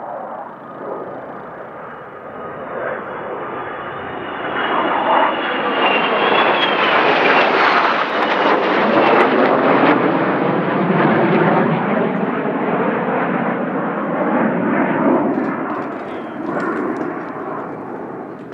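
Formation of five military fast jets flying past overhead: jet noise that builds to its loudest about halfway through and fades toward the end, with a faint high whine wavering above it in the first half.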